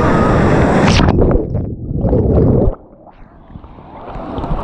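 A wave-pool wave breaking, with rushing water. About a second in the sound turns muffled, as heard from under the water, with gurgling and sloshing. Near the three-second mark it drops to a quiet underwater hush, then rises again.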